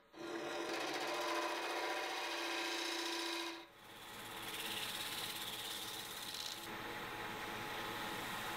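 A gouge cutting manzanita burl on a running wood lathe, shavings peeling off with a steady scraping hiss. There is a short break a little past halfway before the cutting resumes, and near the end a cloth is pressed against the spinning wood.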